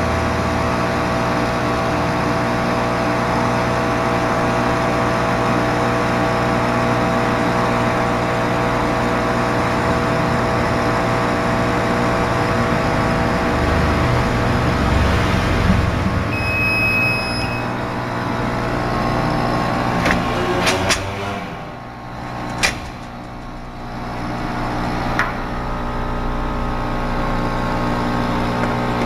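Laser cutter running: a steady mechanical hum of its fans and pumps. Just past the middle a single beep sounds for about a second; a few seconds later come a few sharp clicks, the hum dips briefly and then picks up again.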